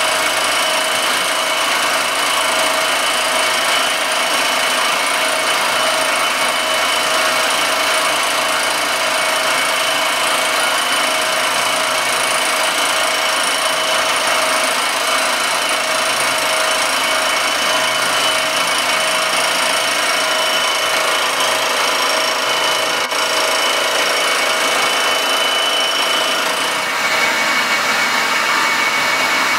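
Circa-1948 Gorton 8-1/2D vertical milling machine taking a continuous cut in an aluminum casting as the table feeds: a steady machining noise with a high hiss and a few held tones, shifting slightly near the end.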